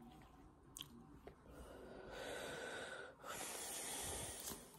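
Two long breaths close to the microphone, each lasting about a second, with a short gap between them.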